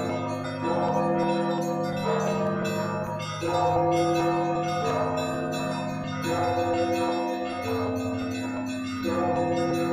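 Orthodox monastery church bells ringing, a fresh stroke about every three seconds with the tones fading away between strokes.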